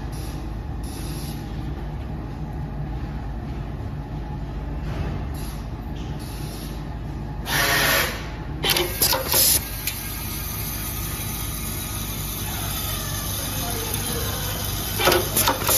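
Automatic snap-button attaching machine running, its vibratory bowl feeders giving a steady hum. A little past halfway comes a loud half-second hiss of compressed air, followed by a few short hisses and clicks from the pneumatic press and feed slides, and a couple more short hisses near the end.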